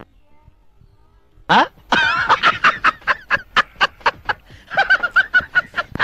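Laughter in quick, even pulses, about five a second, starting with a short rising whoop about a second and a half in and breaking off briefly before carrying on.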